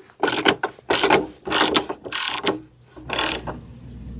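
Hand ratchet wrench tightening a snow-plow headlight's adjusting bolt, clicking through about five short back-and-forth strokes. A low steady hum comes in about three seconds in.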